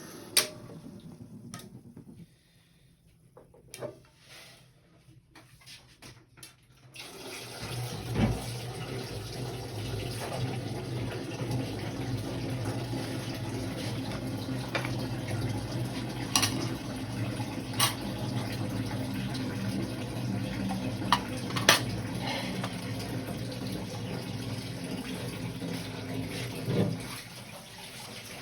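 Kitchen tap running into a sink for about twenty seconds, with a few sharp clinks and knocks over it. It comes on after a few quiet seconds of scattered clicks and stops near the end.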